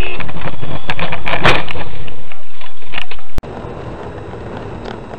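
Loud, distorted dashcam audio from inside a car, with a run of sharp knocks and clatters, the heaviest about a second and a half in. It cuts off abruptly near the end into quieter road noise.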